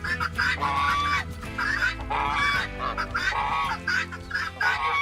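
Geese honking over and over, with background music of low sustained notes under them.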